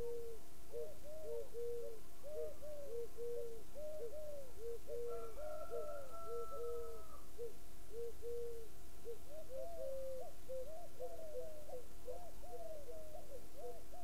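A chorus of short hooting calls from more than one caller, overlapping, several a second, with a higher drawn-out note about five seconds in.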